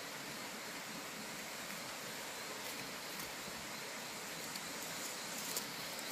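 Steady outdoor background hiss, with a few faint light clicks and rustles about two-thirds of the way in.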